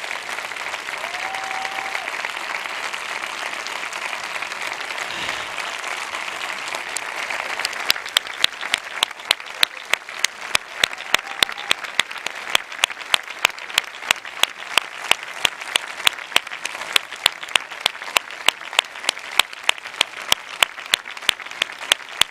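Theatre audience applauding. About eight seconds in, loud, evenly timed claps at about two and a half a second come in over the general applause.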